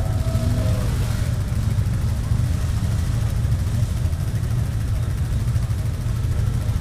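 ATV (quad bike) engines running as the machines churn through a deep mud bog, a steady low drone.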